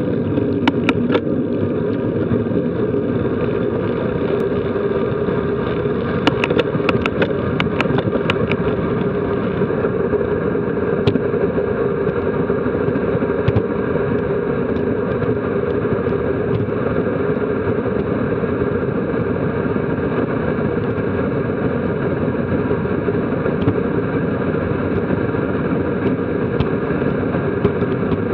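Steady wind rush over the microphone of a bicycle-mounted action camera on a road bike coasting downhill at 13 to nearly 40 mph, with a run of sharp clicks about six to eight seconds in.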